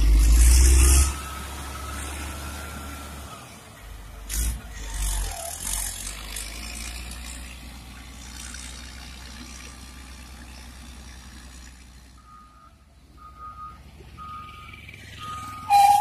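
A Caterpillar motor grader's diesel engine runs as the machine travels along the road, with a loud rumble in the first second. Near the end a backup alarm sounds four short beeps, about one a second.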